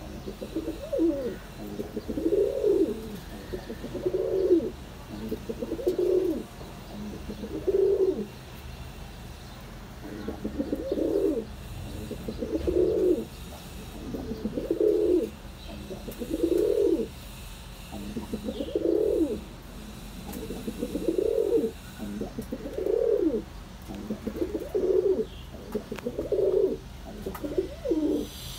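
Satin pigeon cock cooing in a courtship bow-coo display, with rolling coo bouts repeated about every two seconds.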